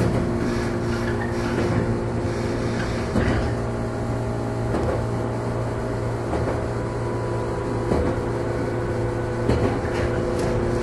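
Interior running sound of a JR 115 series electric motor car (KuMoHa 115): a steady hum of fixed-pitch tones, with a faint clack about every second and a half.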